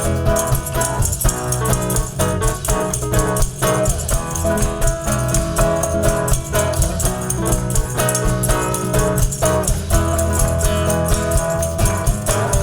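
Live cueca music: guitar with percussion keeping a steady, lively rhythm.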